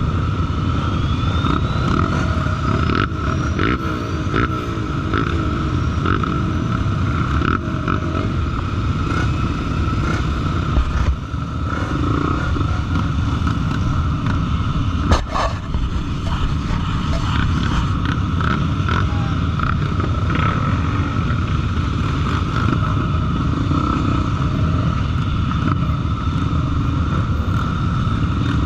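Honda Tornado trail motorcycle's engine running steadily while riding, with a few clatters and knocks along the way.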